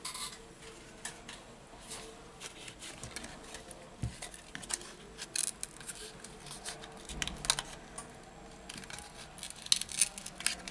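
Scattered small clicks, taps and plastic scraping from handling a Samsung Galaxy J6 Plus smartphone and working a thin plastic sheet under the edge of its cracked display, with a cluster of louder clicks near the end.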